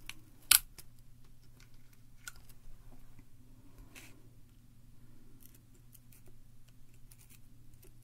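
Small clicks and crunchy scraping as a tool picks and pries at the retaining clip inside an iPod mini's aluminium shell. There is one sharp snap about half a second in, then softer clicks every second or two. The crunching is a sign that the clip is binding or being strained as it is levered out.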